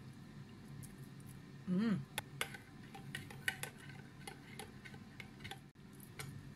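A metal spoon stirring a thick sour cream sauce in a glass bowl, clinking and tapping against the glass in irregular sharp ticks. A brief hummed voice sound about two seconds in is the loudest moment.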